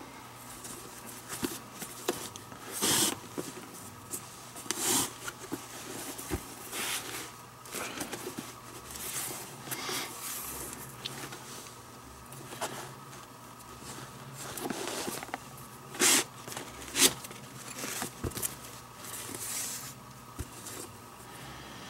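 Leather lace being drawn through the lacing holes of a catcher's mitt, heard as about a dozen short swishing pulls, some lasting about half a second.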